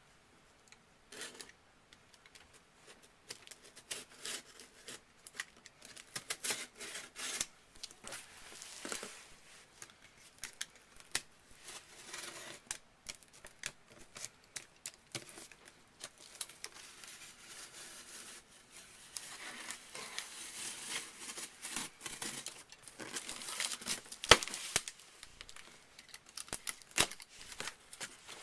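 A cardboard shipping box being cut and torn open: packing tape slit and ripped, with irregular scrapes, clicks and rasps of cardboard and tape, busiest a little past the two-thirds mark.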